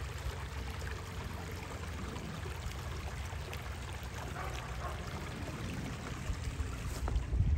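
A small brook trickling over stones: a steady water sound under a low rumble, which swells briefly near the end.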